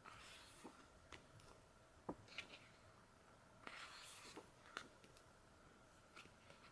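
Thick photobook pages being turned by hand: faint soft swishes and small clicks of paper, with a longer swish about four seconds in.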